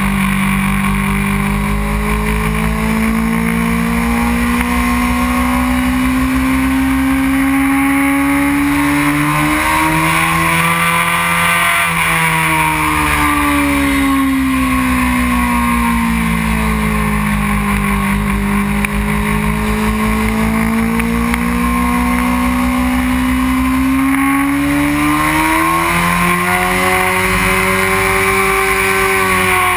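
2001 Honda CBR600 F4i's inline four-cylinder engine heard from on board at speed: its pitch climbs for the first dozen seconds, falls away smoothly for about six seconds as the throttle eases, then climbs again near the end, over steady rushing wind.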